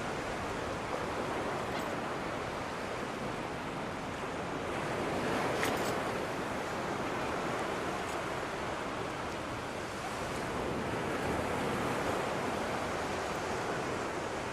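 Steady rushing noise that slowly swells and eases, with a brief sharper hiss about five and a half seconds in.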